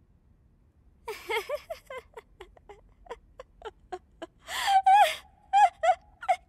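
A cartoon character's shaky, rapid gasps and whimpers, about four a second, starting about a second in, then louder and longer pitched cries near the end.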